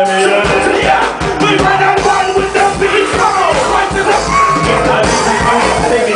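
A live band playing loud rock music, with drums and yelled, sung vocals.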